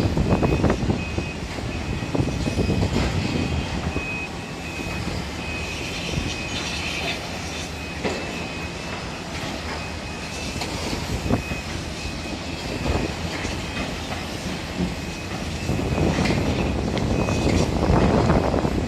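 Construction-site noise: a steady low rumble of heavy machinery and traffic under a high, rapidly repeating warning beep, with scattered knocks. The rumble swells near the start and again in the last few seconds.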